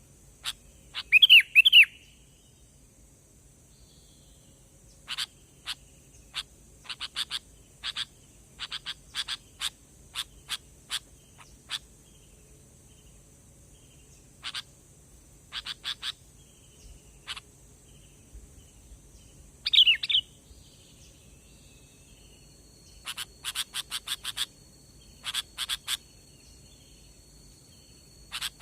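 Sooty-headed bulbul (kutilang) calls played as a trapping lure: clusters of short, sharp chip notes, with two loud bubbly phrases about a second and a half in and again about 20 seconds in.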